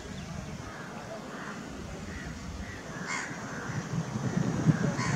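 A bird calling twice, with short calls about three seconds in and again near the end, over a low outdoor rumble that grows louder toward the end.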